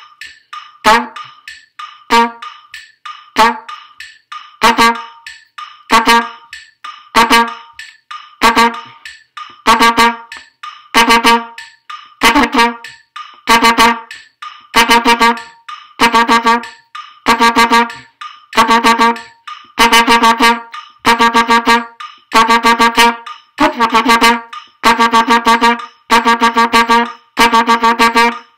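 Trumpet single-tonguing one repeated note, concert F, in short groups at a steady pulse; the groups go from single notes to quick runs of several notes each.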